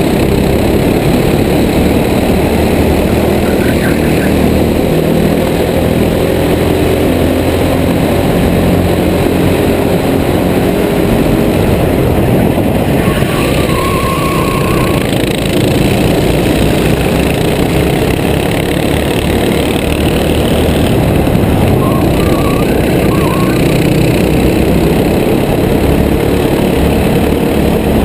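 Racing kart engines running hard in a pack, the pitch of the engine note rising and falling with the throttle through the corners.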